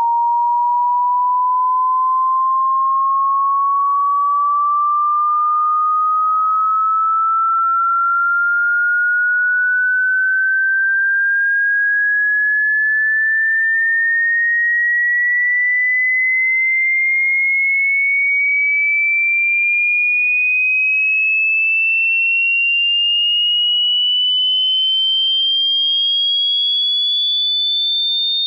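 Electronically generated pure sine tone from a hearing-test sweep across the range of human hearing, gliding steadily upward in pitch by about two octaves at an even loudness. The pitch climbs by a constant fraction rather than a constant step.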